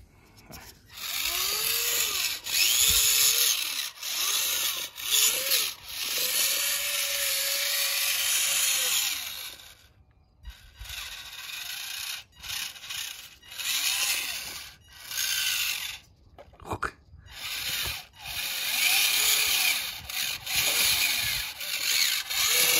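Small battery-powered electric drive motor and gearbox of a model New Holland tractor, whining in repeated runs with short pauses, its pitch rising and falling as the load changes while it climbs and rears up on sand.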